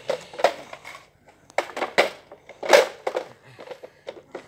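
Plastic Nerf blasters being handled on a tile floor: a few scattered clacks, knocks and scrapes of hard plastic.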